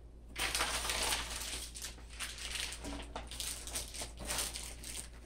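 Packing paper and cardboard rustling and crinkling as parts are pulled out of a shipping box: an uneven rustle that starts about half a second in.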